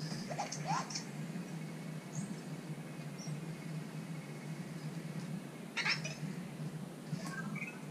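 Anki Vector robot making its electronic chirps as it drives back onto its charging dock: two short rising chirps about half a second in, a brief louder burst around six seconds, and a quick run of stepped beeps near the end.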